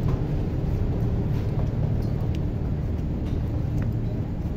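Steady low rumble of a tour boat's engine, with a few faint clicks.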